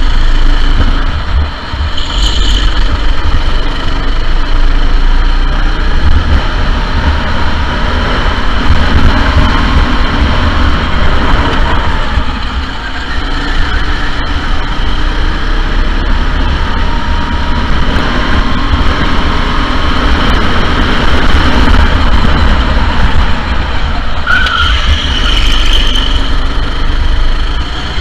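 Sodi SR4 go-kart engine running hard at racing speed with a deep rumble underneath, easing off briefly about a second and a half in and again around twelve seconds in before pulling again.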